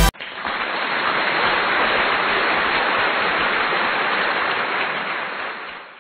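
Egg-and-Spam fried rice sizzling steadily in a hot frying pan, a rain-like hiss that fades out near the end.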